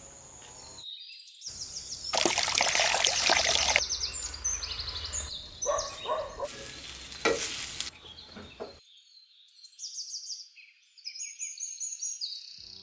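Food sizzling in hot oil in short clips that start and stop abruptly, with knocks of cooking and small birds chirping throughout; the sizzle is loudest about two seconds in. For the last few seconds only the bird chirps remain.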